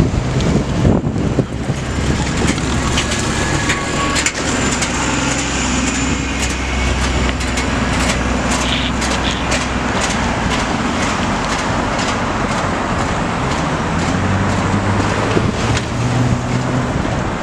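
Orion VII hybrid diesel-electric transit bus pulling away from the stop and driving off, its drive running with a steady low hum. Car traffic passes near the end.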